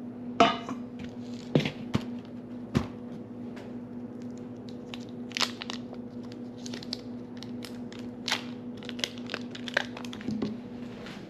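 A stainless steel mixing bowl knocks on a wooden board as it is set down, then a stick of butter is unwrapped, its paper wrapper crinkling and tearing in many small crackles. A steady low hum runs underneath.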